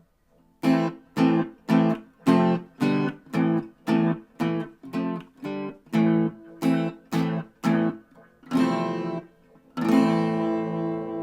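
Enya Nova Go SP1 carbon-fibre acoustic guitar strummed in short, cut-off chords, about two a second, then a longer strum and a final chord left to ring.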